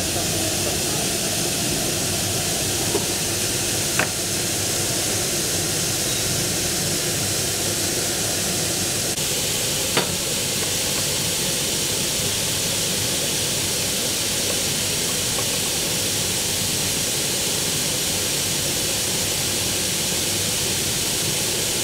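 Steady hissing workshop noise around a pneumatic uPVC profile machine, with two short sharp clicks, about four and ten seconds in.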